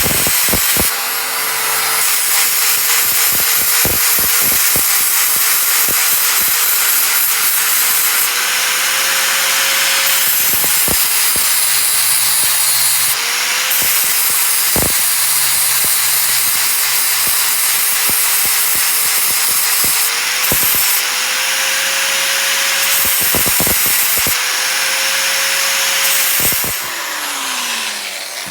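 Electric grinder grinding the edge of a hand-forged steel fire steel, with a steady hiss. The motor's hum sags and picks up again several times as the steel is pressed on and eased off, with scattered clicks, and it spins down near the end.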